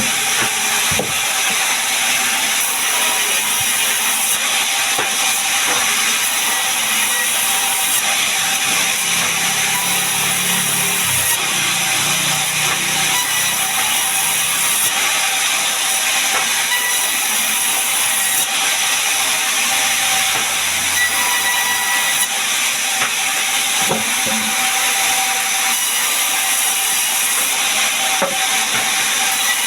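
Sawmill saw cutting gmelina wood into boards: a loud, steady hiss of the blade through the timber that runs on without a break, with a few faint steady machine tones under it.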